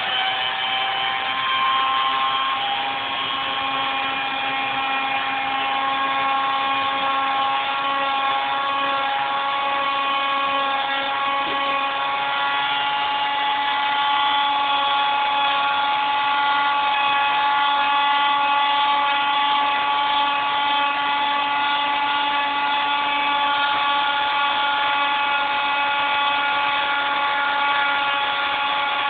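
Electric grinder running steadily with a high whine and overtones while grinding down knots and smoothing the edges of a dried wooden tree limb.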